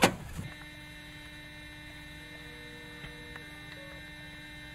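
A car door thumps shut right at the start. Then a steady electrical mains hum runs, with one low tone and several high ones, and a few faint ticks partway through.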